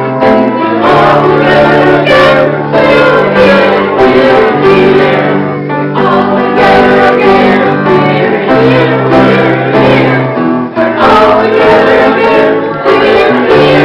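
Music: voices singing together over instrumental accompaniment, with sustained chords and a bass line that steps to a new note every second or so.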